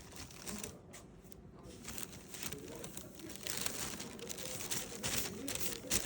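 Plastic bag crinkling in irregular bursts as a cat licks it.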